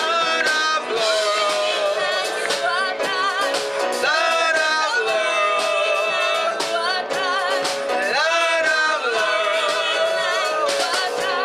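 Live gospel praise song: men singing into microphones, with long held, wavering notes, over band accompaniment with drums.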